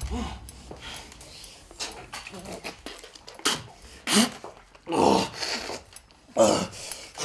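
A woman's muffled whimpering and gasping cries, her mouth held shut by a gloved hand as water is forced on her; the loudest cries come in the second half.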